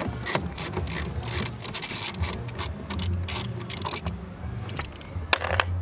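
Socket ratchet wrench clicking in quick runs as bolts at the rear seat and seat-belt anchors are loosened. Under it runs the low thump of distant party music's bass beat.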